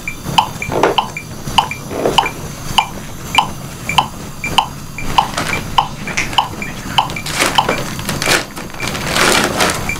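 Defibrillator monitor's CPR metronome beeping steadily at about 110 beats a minute to pace chest compressions, with a second, higher beep falling between the main ones. Rustling hisses come from the crew working around the manikin, louder near the end.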